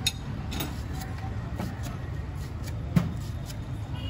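Kitchen knife clicking and knocking against a cutting board a few times at irregular intervals as vegetables are handled and cut, with one louder knock about three seconds in. A steady low traffic rumble runs underneath.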